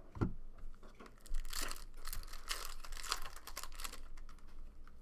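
A foil trading-card pack being torn open and its wrapper crinkled: a run of crackling rustles from about a second in until about four seconds in, after a short low knock at the start.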